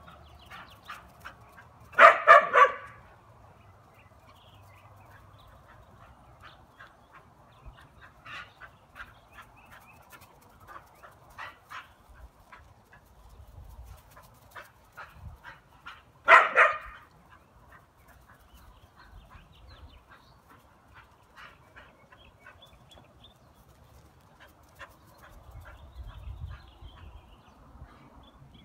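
A dog barking: a quick run of three barks about two seconds in and another short run of barks just past the middle, with fainter short sounds in between.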